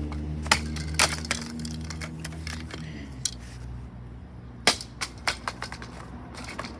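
Irregular sharp clicks and knocks of broken plastic pieces from a light-socket ceiling fan being handled and knocked about. Under them is a low hum that fades away about three seconds in.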